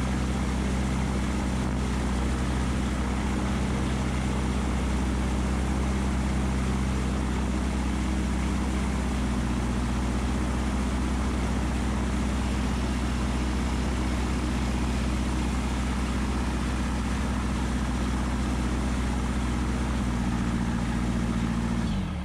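Gyrocopter's engine and pusher propeller idling steadily on the ground, then falling away just before the end.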